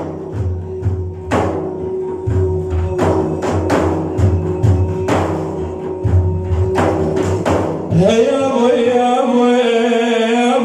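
Islamic devotional chant (madih): repeated hand-drum beats over a steady held note, then about eight seconds in a man's voice comes in on a long, wavering sung phrase.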